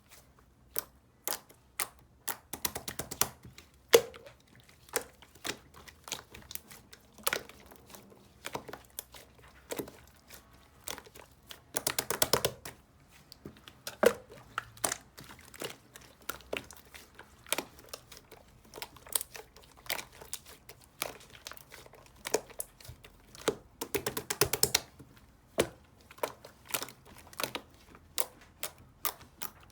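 Slime being squeezed, pressed and folded by hand, making sharp sticky clicks and air-bubble pops, with dense runs of rapid crackling about three seconds in, near the middle and near the end.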